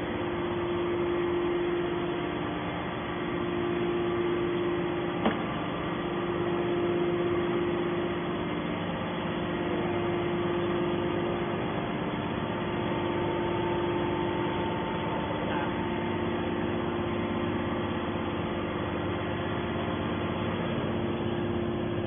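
Hydraulic scrap metal baler's pump motor running with no press stroke under way: a steady hum with one strong held tone and several fainter ones. A single click sounds about five seconds in.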